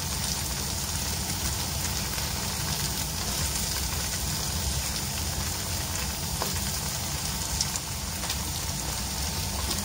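Tofu cubes frying in oil in a nonstick wok: a steady, even sizzle like light rain.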